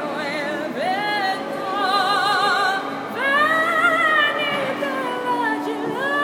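A gondolier singing solo in a strong female voice, holding long notes with a wide vibrato. The loudest is a long note in the middle that rises and then falls away.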